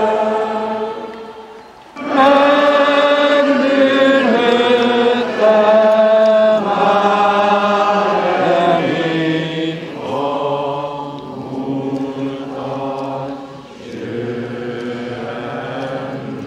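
Voices singing a slow melody in long held notes, with a short break about two seconds in.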